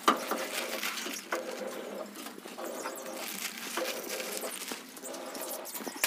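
Polythene sheet crinkling and rustling as it is pulled out of a cage floor, with scattered crackles and loose seed husks shifting on the plastic.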